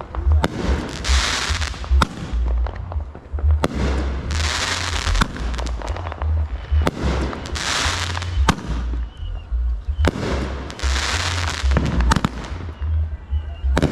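Fireworks going off in a steady series: nine sharp bangs, one about every one and a half to two seconds, each followed by roughly a second of crackling hiss as the burst breaks.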